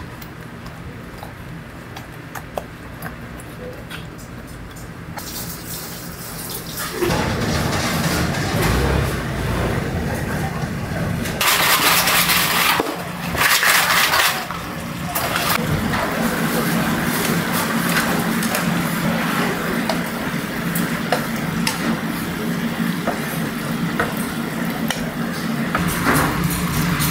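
Quiet handling of battered chicken in a mixing bowl at first. From about seven seconds in, a steady loud sizzling and bubbling of chicken deep-frying in hot oil, with two short, louder rushes of sizzle near the middle.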